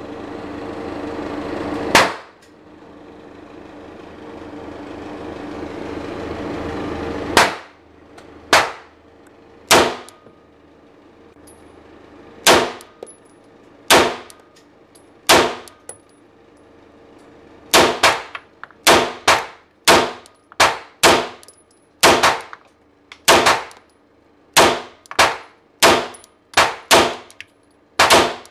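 Shots from a 9mm pistol. First come single shots one to three seconds apart, then a fast string at about two shots a second over the last ten seconds, each shot ringing briefly under the range roof. A steady hum swells behind the first few shots.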